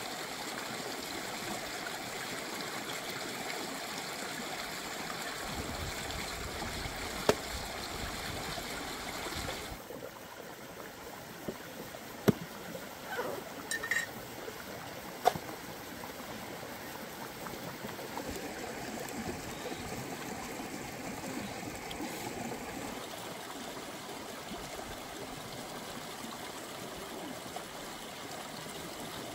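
Shallow stream running over rocks in a steady rush of water. In the middle come a few sharp knocks as a knife chops into a green coconut.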